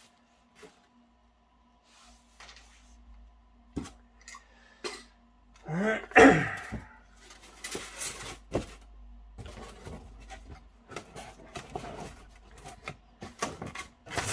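Cardboard box and foam packaging being handled: scattered taps, knocks and rustles as the foam inserts and box lid are moved. About six seconds in comes one louder sound with a rising pitch.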